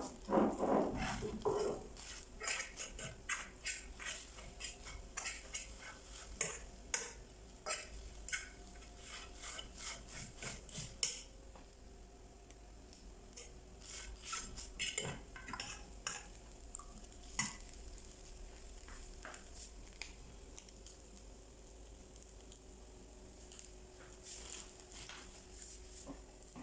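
Dishes and cutlery clinking and scraping, like a spoon stirring in a cup or bowl: many light clicks, busy for the first half and sparser after.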